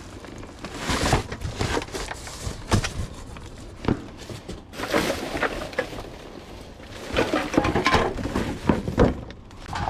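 Junk being rummaged through in a dumpster: irregular clattering knocks and rustling as debris is shifted and pulled about.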